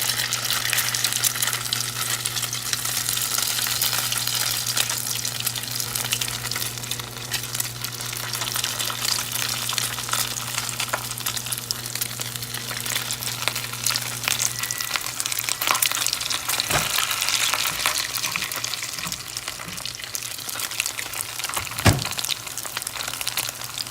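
Rolled chicken tortillas (taquitos) frying in hot oil, a steady crackling sizzle that starts as they go in. A low hum underneath stops about two-thirds of the way through, and two brief knocks come near the end.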